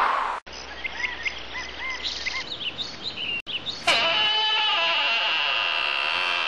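Cartoon soundtrack: a run of short, quick bird chirps for the first three seconds, then a steady, high held tone from about four seconds in.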